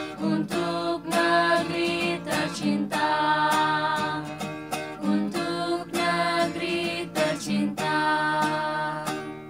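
Music: strummed acoustic guitar chords in a steady rhythm, the closing bars of a song, ending shortly before the finish and dying away.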